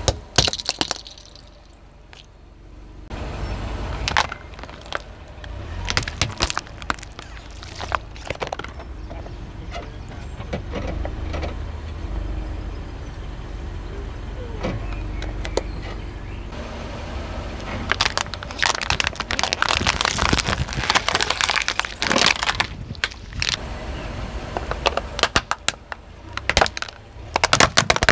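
A car tyre rolls slowly over plastic toys and other objects and crushes them. A sharp crack sounds as a Rubik's cube breaks near the start, then comes a string of snapping and crunching cracks, densest in the last third, over the low rumble of the car.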